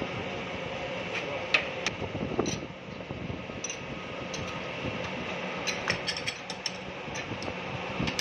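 Crankshaft grinding machine running with a steady hum. Sharp metallic clicks and taps come from handling the crankshaft and machine fittings, a few about two seconds in and a quick cluster around six seconds.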